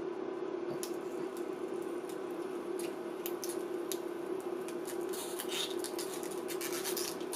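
Scattered small crackles and ticks where a circuit board's transformer pins sit in the molten solder of a lead-free solder pot while the board is worked loose. The crackles grow denser in the second half, over a steady low hum.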